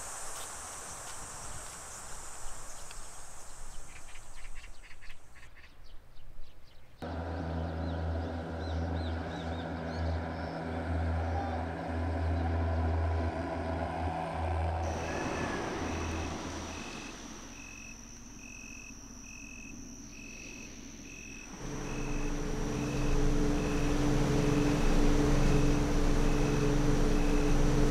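Insects buzzing, then the low drone of a fogging truck's engine and sprayer. A steady beeping follows, and at the end a car ferry's engine runs with a steady low hum, the loudest part.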